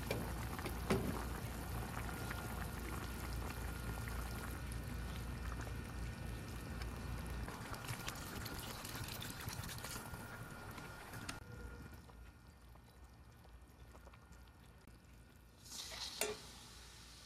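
Duck and yam stew bubbling and sizzling in a stainless steel pan, with water poured in from a plastic bottle about halfway through. The bubbling then dies down. A short clank comes near the end.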